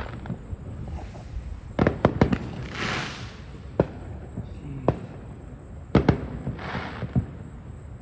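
Aerial fireworks going off: a cluster of sharp bangs about two seconds in, then single bangs about a second apart. Two short hissing rushes come in between, one near the middle and one near the end.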